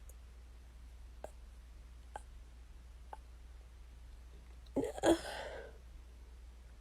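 Three faint clicks about a second apart, then about five seconds in a short, loud burst of breath from a person, in two quick pulses that die away within a second.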